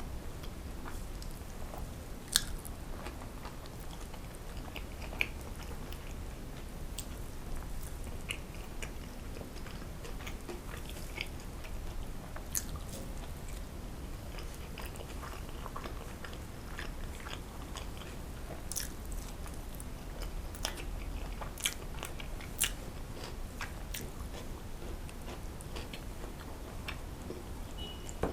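Close-miked chewing and biting of soft food, with sharp wet mouth clicks scattered irregularly throughout, over a steady low hum.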